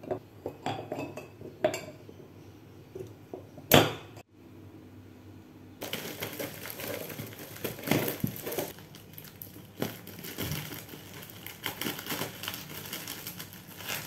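Bamboo lids and spoons clicking and knocking against glass jars on a wooden tray, with one sharp knock about four seconds in. After a short pause, scissors snipping and a taped plastic courier package crinkling as it is cut open.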